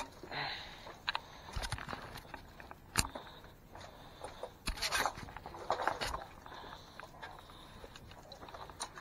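Footsteps and scuffs with scattered sharp knocks as people move about, the loudest knock about three seconds in.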